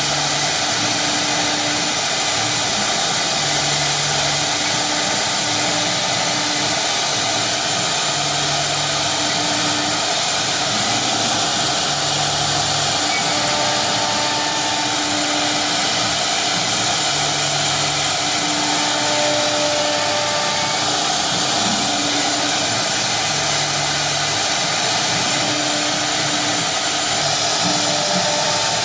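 CNC router running: a steady rushing noise, with short low hums that start and stop every few seconds as the machine moves.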